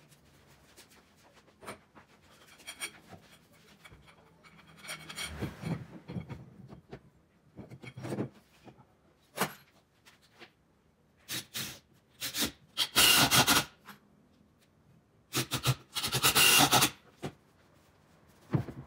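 Hand woodworking on a pine frame: scattered knocks and clicks of wood and tools being handled, then two loud rasping stretches of a second or two each, about two-thirds of the way in, of a tool working the wood.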